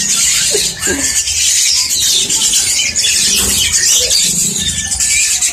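Many small caged birds chirping and twittering at once, a dense high-pitched chatter that goes on without a break.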